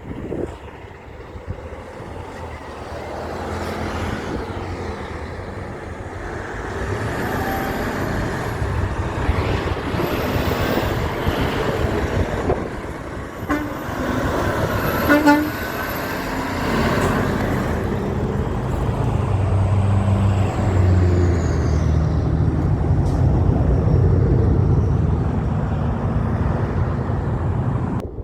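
Heavy trucks driving past with loud diesel engines, the deep engine rumble growing stronger in the last third. A short horn blast sounds about halfway through.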